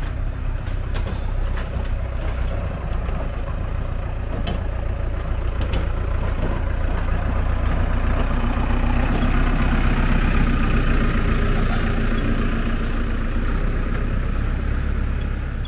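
Road traffic crossing a level crossing: motorcycle engines, then the diesel engine of a JCB backhoe loader passing close by. It runs with a steady engine note and is loudest from about eight to thirteen seconds in, before a small van follows.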